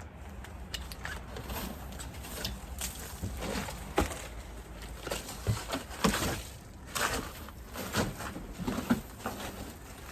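Snow being brushed and scraped off a vehicle: irregular scraping strokes with a few sharp knocks, the loudest about four and six seconds in.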